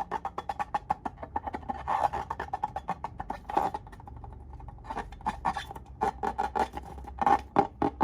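Slime being squished and kneaded by hand: a fast, irregular run of sticky clicks and pops.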